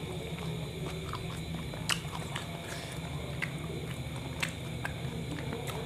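A person chewing a mouthful of kebab wrap close to the microphone, with a few scattered wet mouth clicks over a steady low hum.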